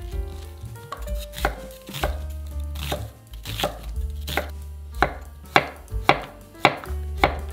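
Santoku kitchen knife chopping vegetables on a wooden cutting board: the blade knocks on the board in sharp, separate strokes, about two a second, starting about a second in.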